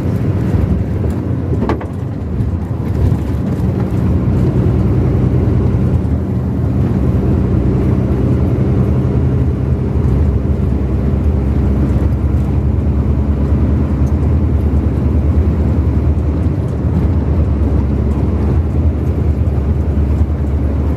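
Vehicle driving at a steady pace: a constant low engine hum over road noise, with one short click about two seconds in.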